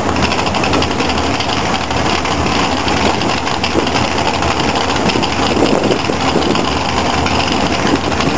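Dragster engine running steadily at the starting line, loud and even, with no revving up or launch.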